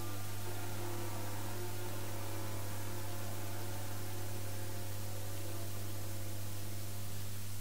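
Steady electrical hum and hiss from an old orchestral recording, with a faint held chord of the orchestra dying away towards the end.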